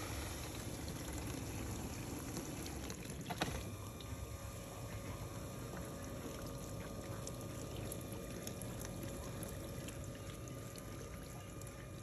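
GE GDF530 dishwasher running a wash: a steady rush of water spraying and sloshing inside the tub over a faint steady pump hum, with a single click about three and a half seconds in.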